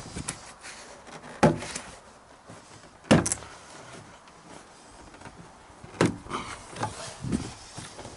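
Plastic pop clips snapping loose as a Ford Ranger's door card is prised off the door: three sharp cracks spread over several seconds, with smaller clicks and plastic rubbing between them.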